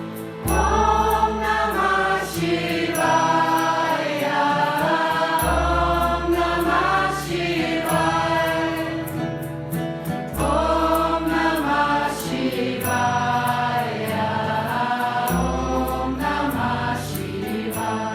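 Group chanting of a mantra as devotional kirtan music: voices sing repeated phrases over a deep sustained bass note that shifts about every five seconds.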